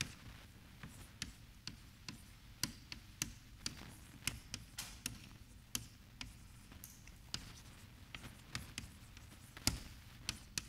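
Chalk tapping and clicking on a blackboard during writing: irregular sharp taps, about two or three a second, with the strongest one near the end.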